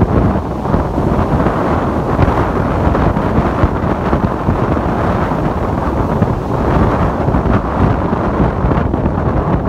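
Ocean waves washing in under strong wind that buffets the microphone, making a steady, dense low rumble of noise.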